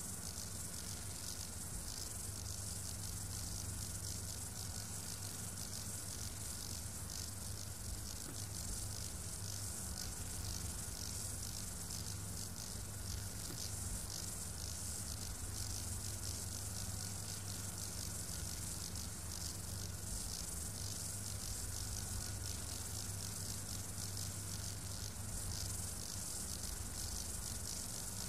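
Steady hiss with a low mains hum and a faint steady whine underneath, no distinct events: the background noise of an old film soundtrack transfer.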